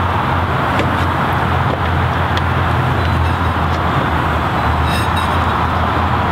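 A steady, loud droning hum with a hiss over it, unbroken throughout. A few faint light clicks come through, from the plastic intake box and heat shield being pressed down onto their rubber grommets.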